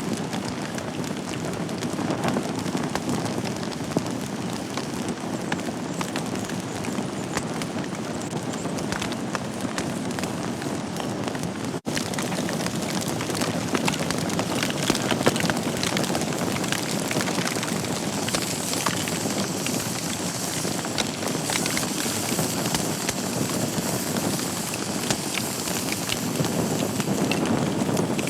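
Wood fire burning in a fireplace: a steady rush of flame with frequent small, sharp crackles and pops from the burning logs. The sound cuts out for an instant about twelve seconds in, then comes back with more hiss.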